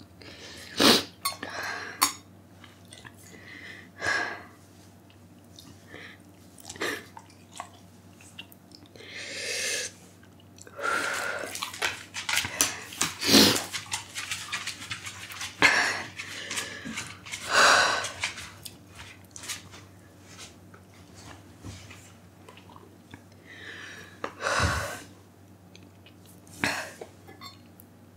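A woman's sharp breaths, sniffs and huffs through an open mouth, coming in short bursts a second or two apart. They are her reaction to the burn of the super-hot Paqui one chip.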